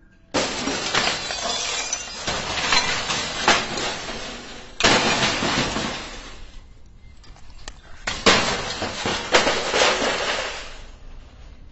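Broken CRT television glass shattering and shards clattering, three times, each starting suddenly and tailing off over a few seconds with sharp clinks of glass pieces.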